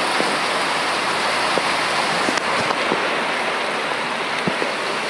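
Heavy rain falling steadily: a dense, even hiss with a few sharper drop taps.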